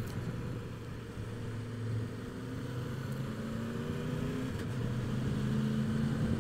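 Triumph Tiger 1200's three-cylinder engine pulling up a gradient at low speed, its note rising gently and getting louder as it gains revs.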